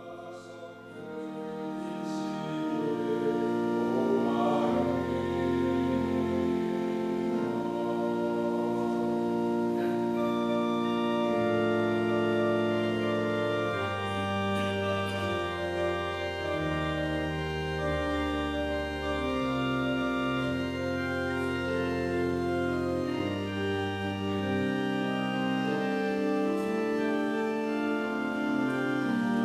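Organ music of slow, sustained chords over a stepping bass line, swelling in over the first few seconds and then holding steady.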